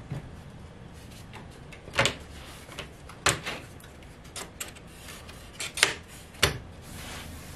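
Thin spruce capstrip clicking and knocking against a wing-rib jig as it is pressed and fitted into place: a string of short, sharp clicks, four of them louder than the rest.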